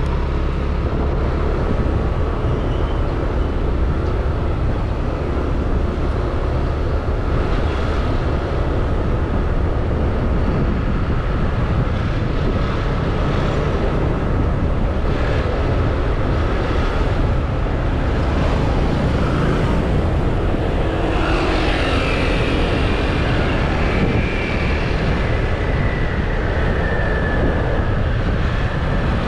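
Steady road and wind noise from riding a motor scooter in traffic, the low end heavy with wind buffeting the microphone. About two-thirds of the way in, a higher whine joins and slowly falls over several seconds.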